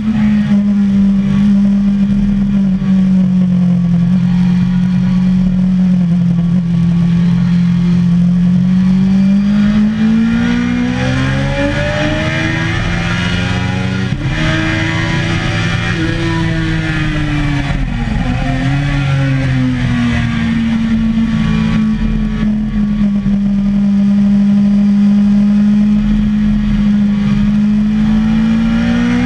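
Suzuki sport bike's engine running hard at speed, heard from on the bike. The note holds steady for several seconds, then rises and falls in pitch a few times through the middle as the throttle is worked, before settling back to a steady note.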